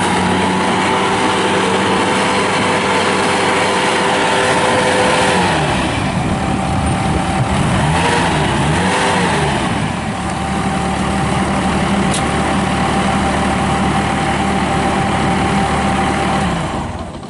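Bobcat T180 skid steer's Kubota diesel engine running at high revs. Its pitch dips and recovers a few times partway through, then steadies, and the engine winds down near the end.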